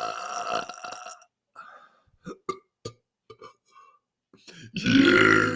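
A man belching. One long, deep, drawn-out belch trails off about a second in. After a pause with a few small clicks, another loud belch starts near the end.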